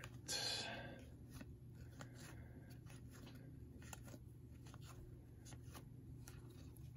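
Topps baseball trading cards being flipped through by hand: a short rustle just after the start, then faint, irregular clicks and paper slides as each card is pulled off the front of the stack and tucked behind.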